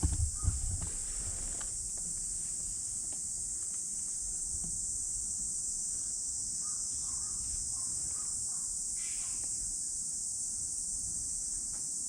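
Insects chirring in a steady, high-pitched chorus. A few low thumps come in the first second, and a brief faint call comes about nine seconds in.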